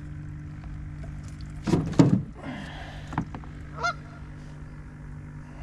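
Short honking bird calls, a few of them around two and four seconds in, over a steady low hum, with a loud knock about two seconds in.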